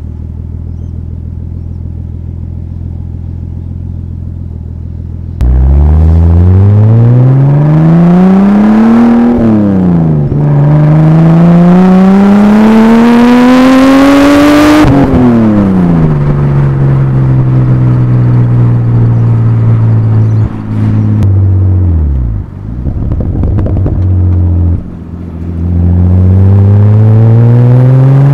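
Exhaust of a turbocharged RB25DET Neo straight-six in an R31 Skyline, heard close from a rear-mounted mic. It drones steadily at cruise, then comes on hard about five seconds in, rising in pitch through one gear change into a long pull. It falls back to a steady cruise and dips briefly off throttle, then starts another rising pull near the end.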